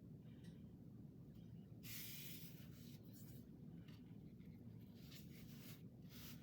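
Soft rubbing and rustling of paper and fabric as a hinge strip is pressed and smoothed down onto a journal page, in two short stretches over a faint low hum.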